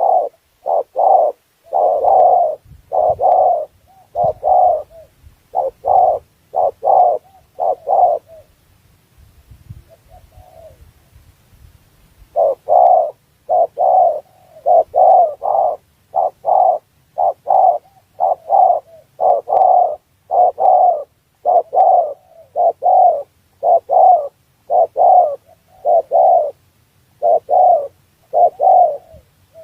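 Spotted dove (tekukur) cooing: short, evenly spaced coos repeated in long runs, with a pause of about four seconds about a third of the way in.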